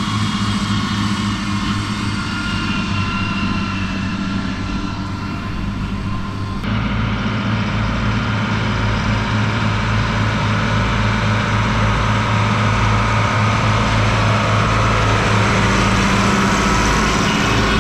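Farm tractor engine running steadily, with a sudden change in the sound about seven seconds in, then slowly growing louder.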